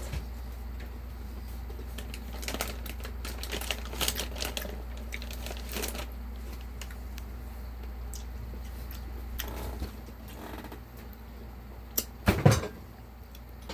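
Eating sounds of a mukbang: scattered sharp clicks and taps of food being handled and eaten by hand, with a louder thump near the end, over a steady low hum.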